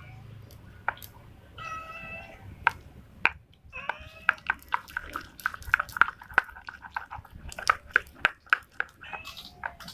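Slime being squeezed and kneaded by hand, giving a run of quick wet clicks and pops. There are two short high-pitched calls, one about two seconds in and one near the end.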